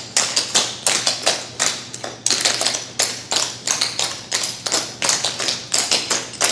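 Clogging taps of a small group of dancers striking a hard floor, quick sharp clicks in uneven rhythmic clusters as they dance the steps, with a steady low hum underneath.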